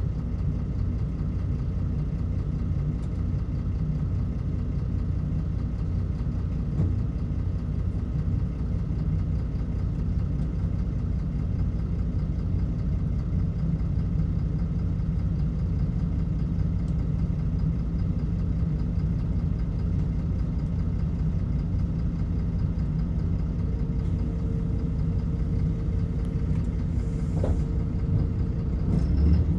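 MAN Lion's City LE city bus's diesel engine idling steadily, a low even run that does not rise or fall; a faint steady whine joins in near the end.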